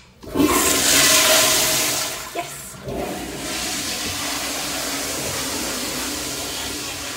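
Commercial flushometer toilet flushing: a sudden loud rush of water starting about a quarter second in, easing after about two seconds into a steady, lower rush of running water.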